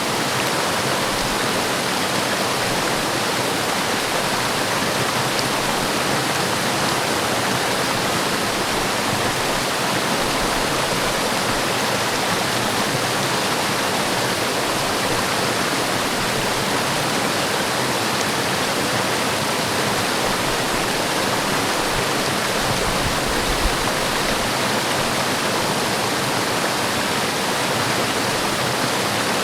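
Forest waterfall rushing in a steady, unbroken wash of falling water.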